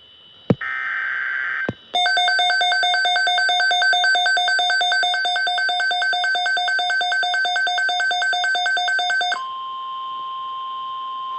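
Weather radio sounding a NOAA Weather Radio alert. It opens with a click, about a second of warbling SAME data-header burst and another click. The radio's own rapid pulsing alarm beeps follow for about seven seconds, the loudest part. Near the end the steady 1050 Hz warning tone takes over.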